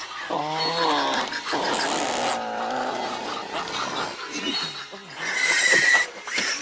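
Compsognathus film sound-effect calls: two pitched, wavering calls over the first four seconds, the second longer, then a sharp high shriek near the end.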